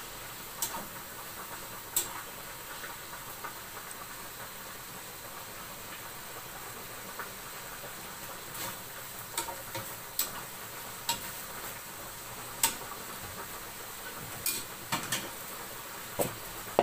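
Diced bacon sizzling in a frying pan on a gas hob, a steady hiss, with scattered sharp clicks as a utensil stirs against the pan.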